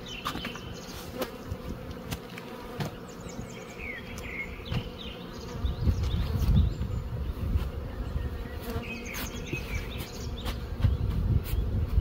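Honeybees buzzing around open hives, a steady hum, with scattered soft knocks as the felt hive cover is laid and tucked in. From about halfway through, wind rumbles on the microphone.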